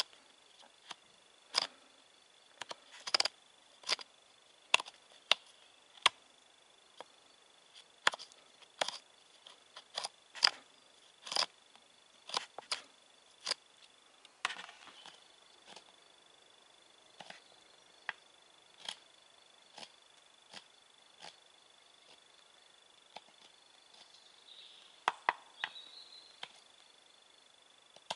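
Sharp, irregular knocks of a blade chopping into a wooden block as the sheath is carved, frequent in the first half and sparser later. A steady high insect trill runs behind them.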